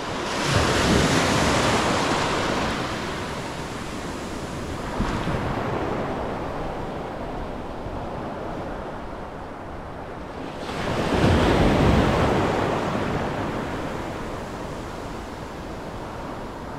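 Small waves breaking and washing up a shallow sandy beach: the surf swells loudest about a second in and again about eleven seconds in, with a smaller wave around five seconds, each fading away slowly.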